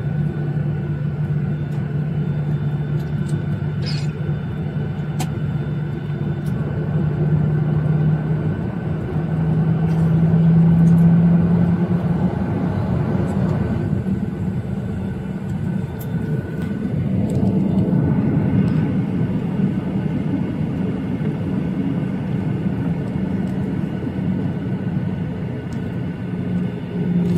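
Cabin noise of a Boeing 737-800 with its CFM56 jet engines running: a steady low hum over a broad rushing drone. About nine seconds in the hum rises a little in pitch and grows louder, and the drone swells again later.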